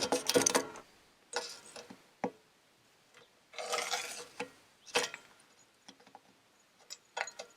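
Scattered clicks, taps and short rattles of a drilled-out piece being shaken and worked loose inside a combine header's chaff-blower tube.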